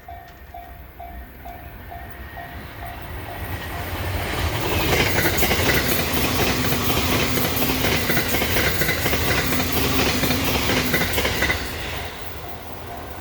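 Level-crossing warning bell dinging in a quick, even rhythm. Then a JR East E353 series limited express electric train passes over the crossing: its noise builds over a few seconds into a loud rush with clickety-clack from the wheels, then drops away fairly suddenly near the end as the last car clears.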